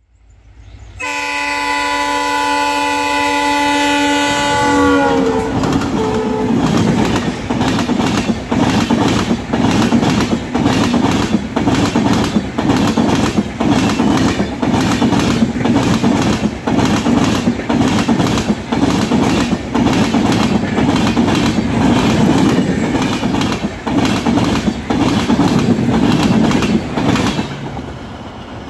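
A WDP4B diesel locomotive sounds its horn, a chord of steady tones that drops in pitch as it passes. Then the express's passenger coaches rush by at speed with a fast, rhythmic clatter of wheels over the rail joints, which falls away near the end.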